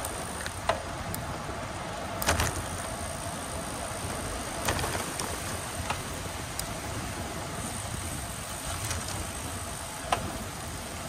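Steady wind and rolling noise from a bicycle being ridden uphill, with a few sharp clicks or knocks scattered through it, the loudest about two seconds in.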